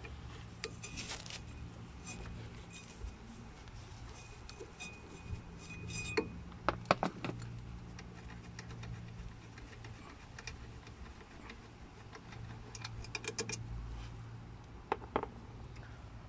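Metallic clinks and scattered ticks of a 13 mm spanner being worked on a rusty rear brake caliper bolt, with a few sharper knocks about six to seven seconds in.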